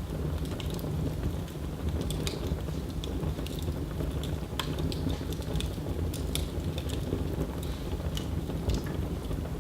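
Wood fire burning in a fireplace: irregular crackles and snaps over a steady low rumble.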